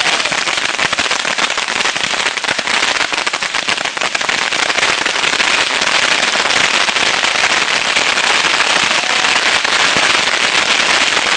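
Thousands of bottle rockets going off together from a homemade multi-rocket launcher: a loud, dense, unbroken crackle of pops and hissing launches that grows a little louder about halfway through.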